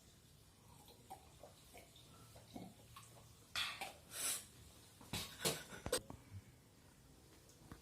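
A person drinking water: a few short sips and breaths in two brief clusters around the middle.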